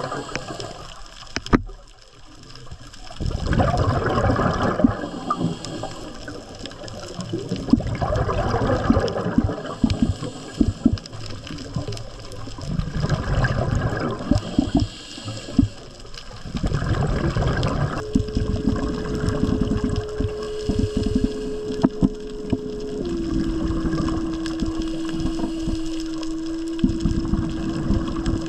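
Underwater rushing and bubbling: a scuba diver's regulator breathing, with loud exhaled-bubble bursts about every four to five seconds. In the last third a steady hum comes in under the water noise and drops a step in pitch once.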